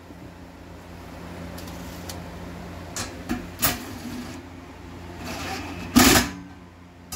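A few light knocks, then a short burst from a cordless drill-driver about six seconds in as it runs a bolt into a step-bar mounting bracket. A steady low hum sits under it all.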